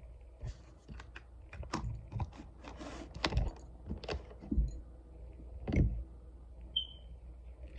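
Long acrylic fingernails clicking and tapping together in an irregular series of sharp clicks, with a brief high chirp near the end.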